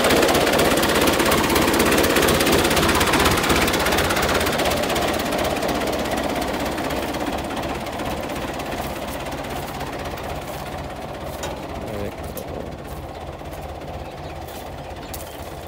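Belt-driven wheat thresher running: a dense mechanical clatter and rush with a fast, even rhythm underneath, gradually getting quieter.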